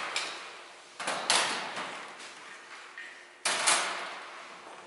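Sharp clunks of hard objects knocked or set down on a metal workbench: a pair about a second in and a louder pair about three and a half seconds in, each ringing on in the big room.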